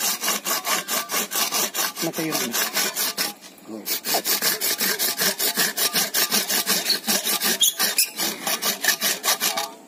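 Hand rasp scraping a cow's horn in quick, even back-and-forth strokes, about five a second, with a short pause a little over three seconds in, as the horn is filed down to shape.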